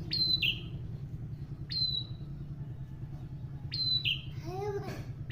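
Bar-winged prinia (prenjak) calling three times, about two seconds apart; each call is a sharp falling whistle followed by a short buzzy note. A steady low hum runs underneath, and near the end a lower, arching call from another source is heard.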